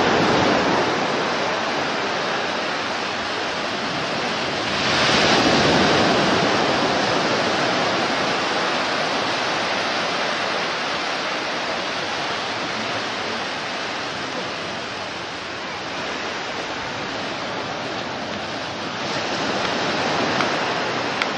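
Waves washing on a beach: a steady rushing noise that swells about five seconds in and again near the end.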